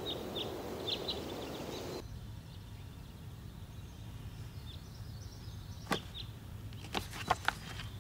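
Birds chirping over outdoor ambience for the first couple of seconds. It then cuts to quiet room tone, broken near the end by a few sharp clicks or taps.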